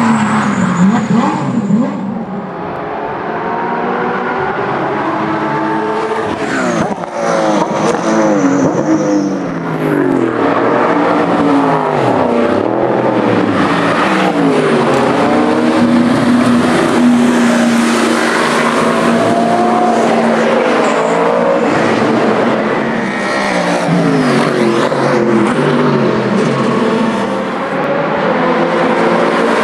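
Several classic racing cars passing at speed, their engines overlapping and rising and falling in pitch as they rev, change gear and go by.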